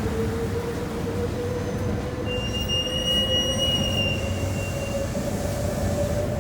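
Saitama New Shuttle 1050 series rubber-tyred people-mover running, its thyristor phase-controlled traction drive giving a steady whine that rises slowly in pitch as the train gathers speed. A high, clear squeal sounds over it for about three seconds near the middle.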